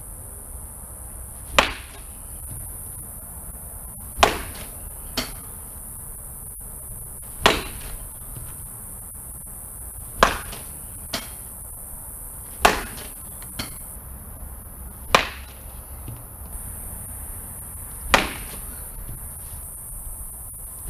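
Baseball bat hitting balls off a batting tee: seven sharp cracks about two and a half to three seconds apart. A few of them are followed by a fainter knock about a second later.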